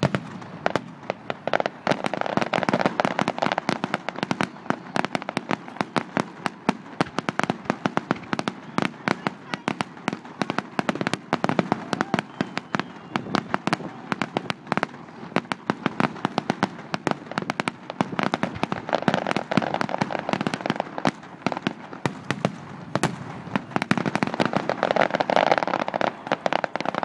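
Fireworks display: a rapid, unbroken barrage of sharp bangs and reports, many per second, beginning abruptly and growing denser in a few heavier bursts.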